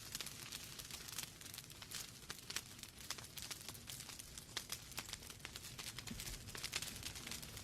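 Wood fire burning in a fireplace: logs crackling with many irregular sharp pops and snaps over a soft steady rush of flame.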